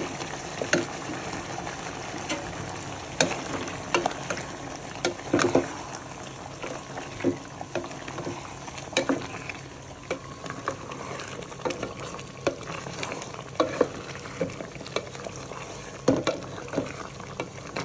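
Braising sauce thickened with potato starch sizzling and bubbling in a pan while it is cooked down, with a wooden spatula stirring through it. Irregular knocks and scrapes of the spatula against the pan are scattered throughout.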